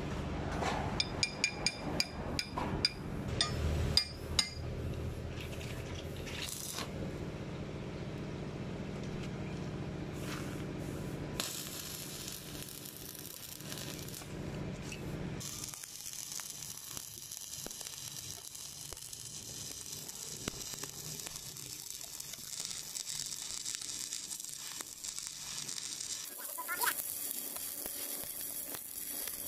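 Stick (arc) welding a steel bushing onto a steel tube: the arc crackles and sizzles steadily, starting about a third of the way in. Before that come a few sharp metal clinks over a low hum.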